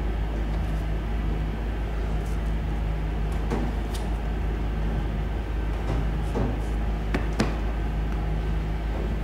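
Steady low machine hum of bakery equipment, with a few light knocks and taps as a scone cutter works the dough on a steel bench and the cut scones are set on a tray.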